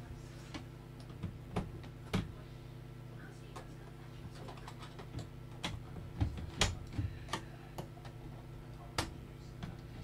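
Irregular clicks and taps of a screwdriver prying at the back-cover clips of a Medion P2010 all-in-one PC, with the sharpest clicks about six to seven seconds in and one more near nine seconds.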